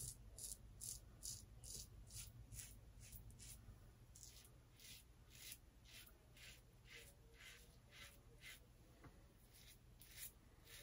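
Faint, quick scratching of a double-edge safety razor, a Rockwell 6C with an Astra Blue blade, cutting stubble through shave cream in short strokes, about two to three a second.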